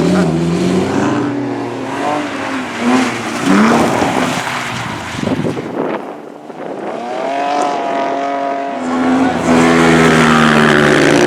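Racing engines on a cinder track, revving up and down as the vehicles accelerate and lift off. The sound dips about six seconds in, then an engine comes up loud and holds a steady high pitch near the end.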